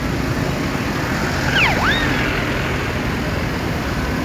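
Steady road traffic running past, with a couple of short sliding high tones about a second and a half in.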